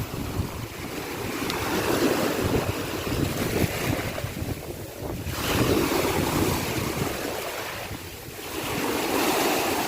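Sea waves breaking and washing ashore, swelling and falling back several times, with wind rumbling on the microphone.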